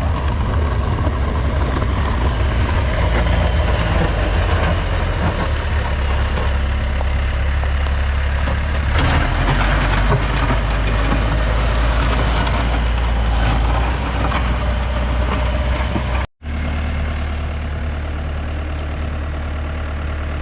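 Heavy equipment engine running steadily under load, a low drone with mechanical clatter. About 16 seconds in it cuts out for an instant, then carries on slightly quieter.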